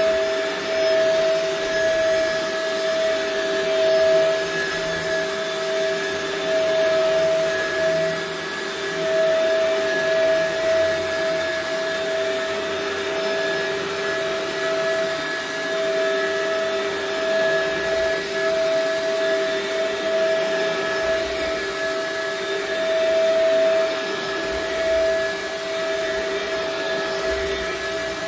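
Shark upright vacuum cleaner running steadily as it is pushed over an area rug: a constant motor whine over the hiss of the suction, swelling and easing slightly with the strokes.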